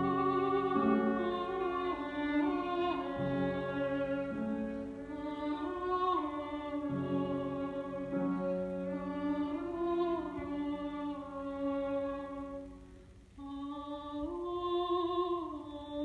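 Soprano singing a Russian art song in operatic style, with a violin obbligato and piano accompaniment. About 13 seconds in the music nearly stops for a moment, then the voice comes back on a long note with a wide vibrato.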